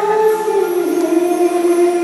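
A woman singing through a microphone and PA, holding long notes that step down in pitch about a second in, in an Indian melodic style.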